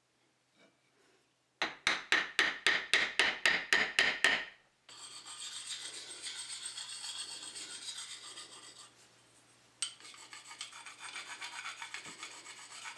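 Hand work on an old steel chisel: about fourteen quick rasping strokes, around five a second, then a steadier scraping rub against the steel with a single click partway through.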